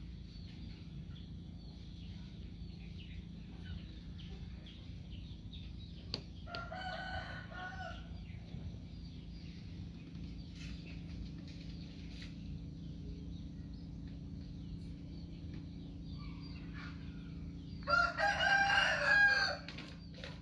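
A rooster crowing twice, a fainter crow about seven seconds in and a louder one near the end, over a steady low hum.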